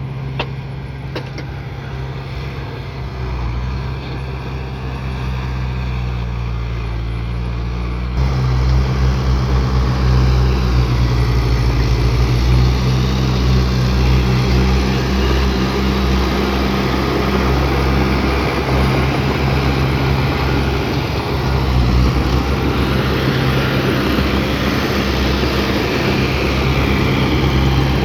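Bulldozer's diesel engine running steadily, becoming louder and rougher about eight seconds in.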